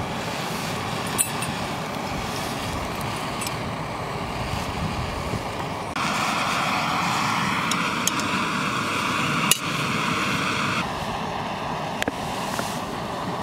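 Backpacking gas canister stove burning with a steady hiss; it grows louder about six seconds in and drops back near eleven seconds. A few sharp metallic clinks, the last as a steel pot is set onto the burner near the end.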